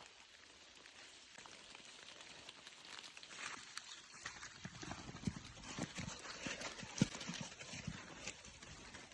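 Faint irregular knocks and thuds that start about four seconds in and come several times a second, the loudest about three seconds later.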